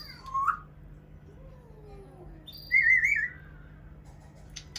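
Pet parrot whistling: a short whistle just after the start, then a louder warbling whistle of about half a second a little under three seconds in.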